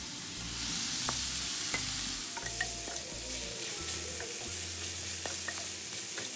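Masala-stuffed okra sizzling as it hits hot oil in a stainless steel frying pan, the sizzle growing louder about half a second in. A wooden spatula stirs the okra, scraping and knocking against the pan with scattered clicks.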